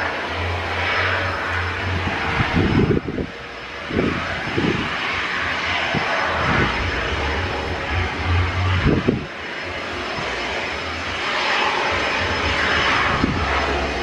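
Twin rear-engined jet taxiing on the runway, its turbofans running at low thrust with a steady hissing whine. Irregular low thumps run underneath it.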